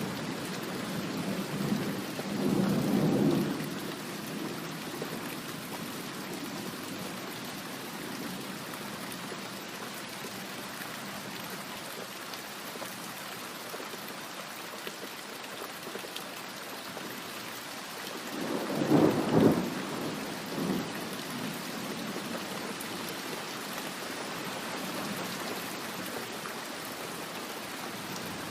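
Steady rain falling, with rolls of thunder rumbling twice: a short roll a few seconds in and a louder one about two-thirds of the way through.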